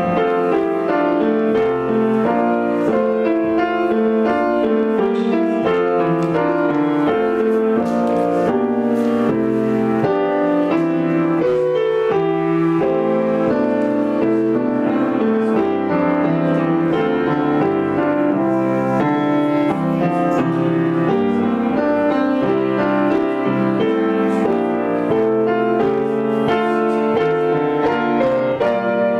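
Instrumental prelude played on a keyboard instrument, a steady flow of chords and melody that continues without a break.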